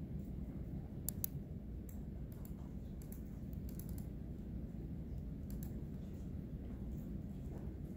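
Typing on a computer keyboard: scattered key clicks in short runs, over a steady low hum of room noise.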